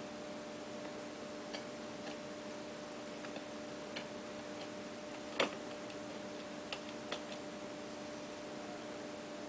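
A few faint, irregular clicks and light taps, one louder tap about halfway through, over a steady low electrical-sounding hum.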